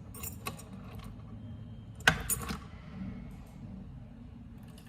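Mechanical key being put into and turned in a smart lever lock's cylinder: light metallic clicks and key jingle, with one loud sharp click about two seconds in followed by a few smaller clicks.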